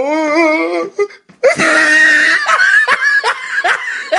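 Laughter: a wavering, pitched laugh that stops about a second in, then after a short break a breathy, hissy laugh in repeated pulses, about two or three a second.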